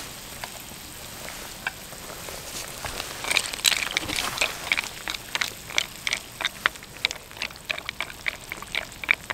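Tomato sauce with penne simmering in a carbon-steel frying pan, a steady bubbling hiss. From about three seconds in, a wooden spoon stirs the pasta, with quick irregular scrapes and clacks against the pan.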